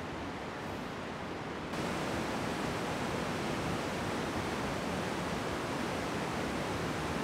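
Steady rushing of an underground river in a cave, an even noise of moving water that gets louder a little under two seconds in.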